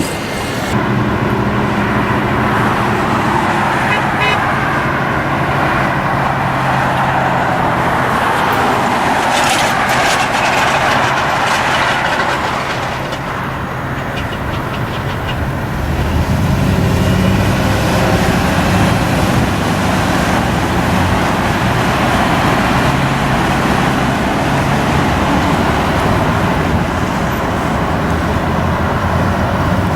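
Steady freeway traffic noise: tyres and engines of cars and heavy trucks passing, with low engine drones coming and going, and some car horn honks.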